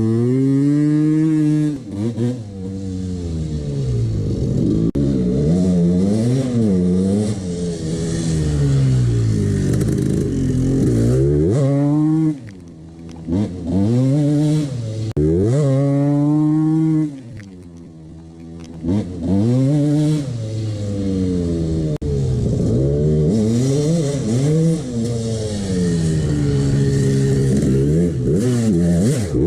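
1989 Honda CR250's single-cylinder two-stroke engine being revved up and down again and again, its pitch climbing and falling with the throttle and dropping back briefly a few times. It has piston slap, which the owner warns should not be ignored.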